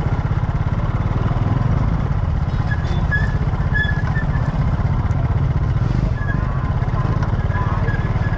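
Steady low rumble of a small engine running close by, over the general noise of an open-air market.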